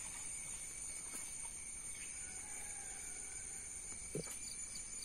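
Steady high-pitched drone of insects in the vegetation, with a brief low knock or splash about four seconds in.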